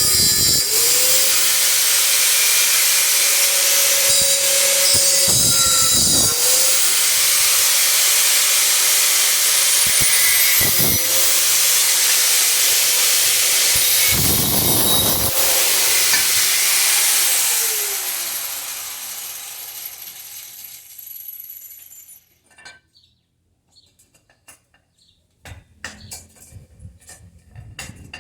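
Angle grinder running and working metal, its motor tone sagging briefly each time it bites. It is switched off about 17 s in and spins down, followed by a few light metallic clinks.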